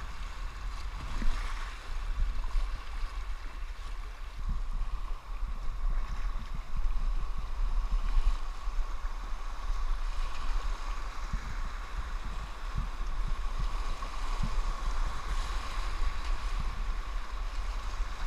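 Whitewater rapids rushing steadily around a kayak running them, heard close to the water, with a steady low rumble and a few dull knocks.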